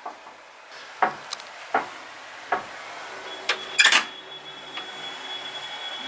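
A few sharp knocks or clicks on a wooden door, then a brass barrel bolt slid back with a loud metallic rattle about four seconds in as the door is unbolted and opened. A thin, steady high tone sounds from a little after three seconds on.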